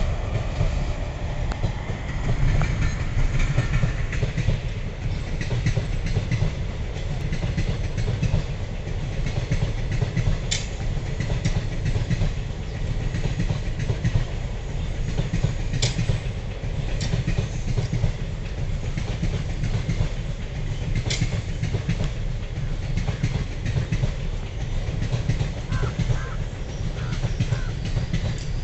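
Passenger coaches of an Indian Railways express train rolling past: a steady low rumble with wheels clicking over the rail joints and a few sharp metallic clicks.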